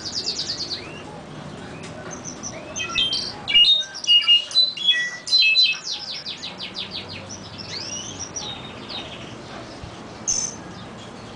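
A chorus of songbirds singing, from a canary, a clarín (solitaire) and a huitlacoche (curve-billed thrasher). Rapid trills mix with clear whistled notes, loudest a few seconds in, then softer phrases.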